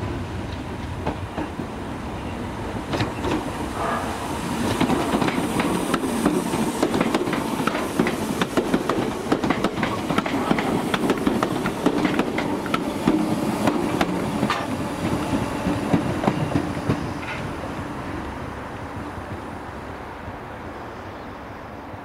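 Southern Class 313 electric multiple unit running slowly past, its wheels clicking and clattering over rail joints and pointwork. The sound builds as it approaches and fades as it draws away.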